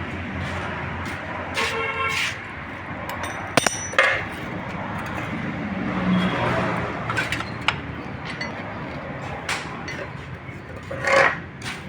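Steady street and traffic noise, with occasional light metal clinks of tools and engine parts being handled. There are two short pitched sounds, one about two seconds in and one near the end.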